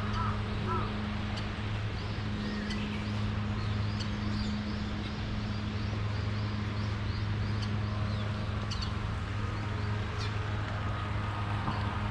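Small birds chirping, short high calls scattered throughout, over a steady rushing background and a low constant hum.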